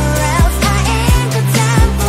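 Background pop song: a singing voice over a steady drum beat and bass.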